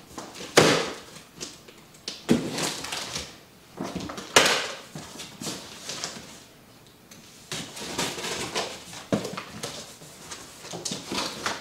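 A large cardboard shipping box being cut open with a box cutter and its top flaps pulled back: a series of short, irregular scraping and rustling noises of cardboard and packing tape.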